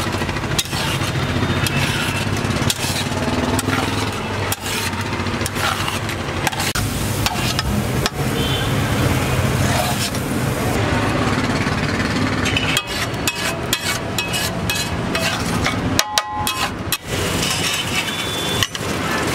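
A spatula scraping and knocking on a large flat metal tawa as pav bhaji is stirred and spread, with many short clacks throughout, over a steady hum of street traffic.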